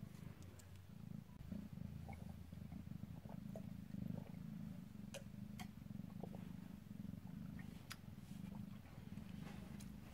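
Cat in labour purring steadily, a low pulsing rumble, with a few faint clicks partway through.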